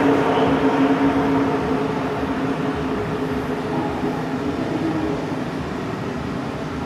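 Steady vehicle-engine drone holding two tones over a rushing noise, slowly getting quieter.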